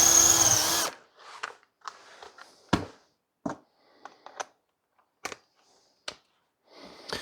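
Power drill boring into the end of a wooden stick, a steady motor whine that winds down and stops about a second in. Scattered small knocks and clicks of handling follow.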